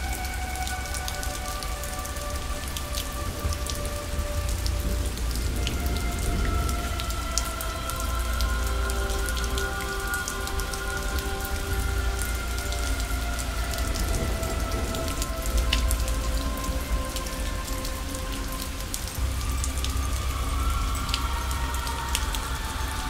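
Rain ambience, a steady hiss of rainfall with scattered drop ticks and a low rumble, under soft ambient music of long held notes that change every few seconds.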